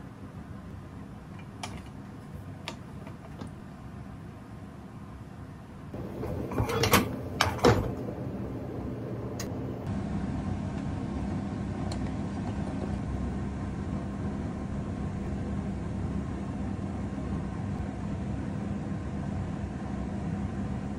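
A few light clicks, then about six seconds in a short burst of clattering knocks as a stovetop hot sandwich maker is handled over a gas burner. After that a steady low hum with a hiss runs under the rest.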